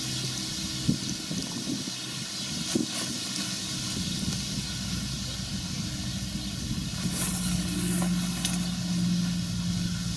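New Holland combine harvester running while harvesting grain: a steady engine and machinery drone with a hiss over it. A low hum grows stronger about two-thirds of the way in.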